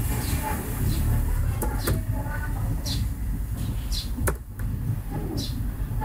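A few sharp computer-keyboard key clicks as a date is typed, over a steady low background rumble.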